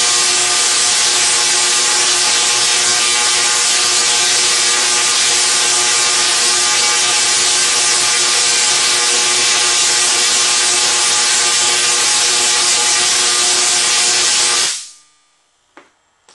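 SIDAC-driven Tesla coil firing streamer arcs into the air: a loud, steady buzzing hiss with a steady hum running through it. It cuts off suddenly near the end, followed by a faint click.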